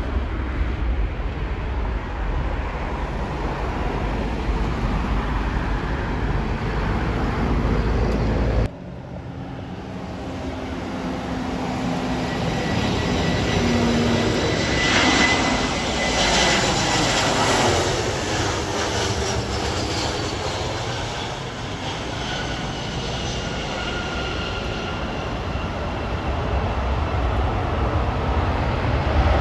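Airplane flying close past: its engine noise builds to a peak about halfway through, with a falling whine as it goes by, then eases away. Before that a steady low rumble cuts off suddenly about a third of the way in.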